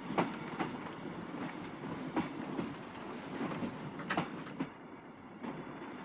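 Railway passenger carriage running, heard from inside the compartment: a steady rumble of the wheels, with paired clicks over rail joints about every two seconds.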